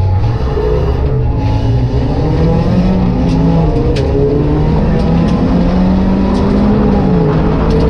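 Ford Puma race car's four-cylinder engine accelerating hard away from a race start. Its note climbs in pitch and drops near the end at a gear change.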